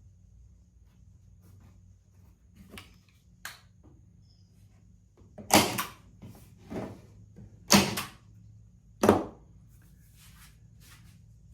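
Staple gun driving staples into wood: three loud, sharp shots about two seconds apart in the second half, with lighter clicks and knocks of handling before and between them.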